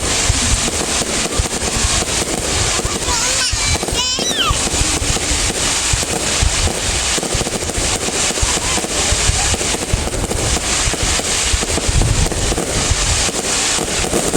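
Fireworks going off in dense, continuous volleys of pops and bangs, with a brief wavering whistle about four seconds in.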